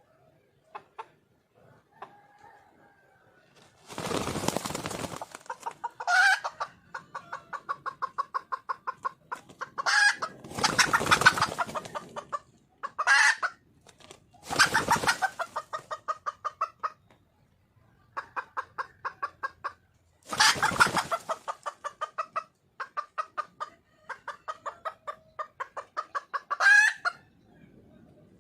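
Red junglefowl hen calling for a mate: long runs of evenly repeated clucks, about four a second, broken by sharper, louder single call notes. Several harsh noisy bursts about a second long cut in between the runs.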